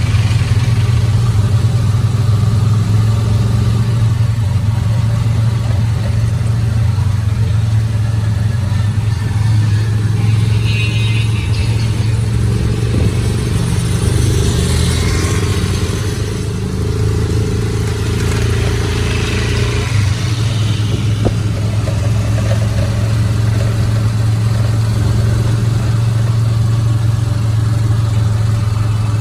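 Motor vehicle engine and road noise, a steady low drone with no break.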